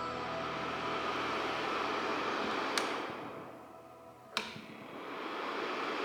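A SilverCrest ceramic heater's fan blowing steadily. About three seconds in it is switched off with a click and its rush dies away, and about a second and a half later it is clicked back on and spins up again.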